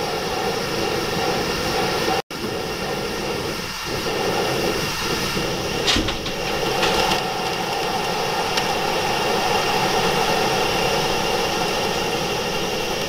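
SOTO Storm Breaker SOD-372 stove burning pumped white gasoline on a high flame: the burner's steady rushing hiss. The flame is still settling, since on liquid fuel it takes time to become stable.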